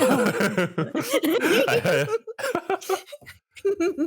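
Several people laughing and chuckling together, breaking off briefly in the middle and starting again.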